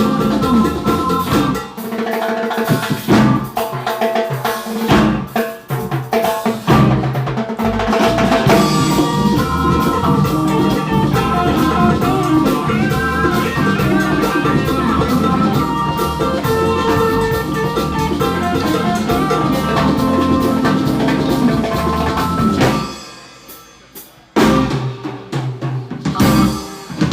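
Live band playing, the drum kit loud with kick, snare and rimshot hits over pitched instruments. About 23 seconds in the music nearly stops for a moment, then the drums come back in.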